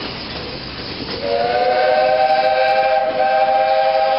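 Steam locomotive's chime whistle blowing one long blast of several notes at once. It starts about a second in with a slight upward slide, over the steady running noise of the train.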